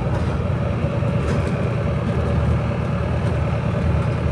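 Steady low rumble of a city bus running, heard from inside the passenger cabin, with a faint steady whine over it.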